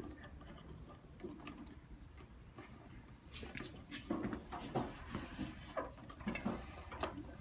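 A rubber base ring being stretched by hand and worked over the lip of a chrome hydraulic salon chair base: irregular rubbing and handling noise with scattered small knocks of rubber and hands against the metal, busier and louder from about three seconds in.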